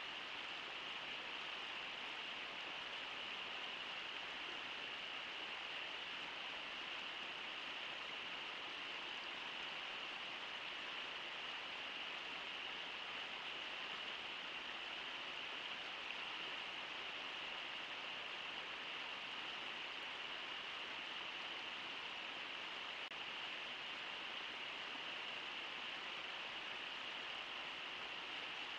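Steady rush of flowing river water, even throughout with no splashes or other sounds standing out.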